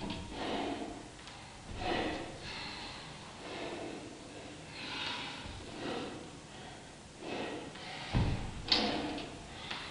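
A person breathing hard and rhythmically while doing kettlebell one-arm long cycle reps, with a forceful breath about once a second. A dull thump comes near the end.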